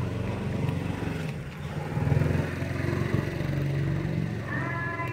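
A motorbike engine runs with a low steady hum that swells about two seconds in. Near the end, a street vendor's recorded call from a loudspeaker starts up.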